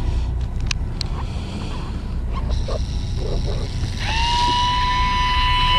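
An electric fishing reel's motor starts up about four seconds in, rising briefly to a steady high-pitched whine. Under it is a steady low rumble, with a couple of faint clicks about a second in.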